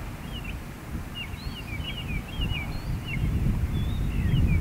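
Small birds chirping, many short high notes in quick succession, over a low wind rumble that grows louder toward the end.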